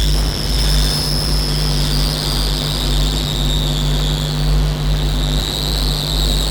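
Loud, harsh industrial noise drone from an experimental electronic track: a dense, steady wash of noise like a jet engine, with a low hum and a high whistling band held under it.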